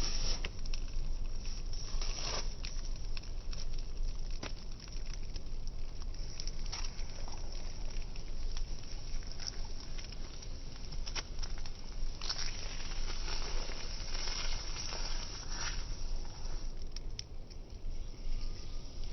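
Burning cardboard crackling and hissing, with many small scattered pops and clicks. There are louder stretches of hissing about two seconds in and again from about twelve to sixteen seconds.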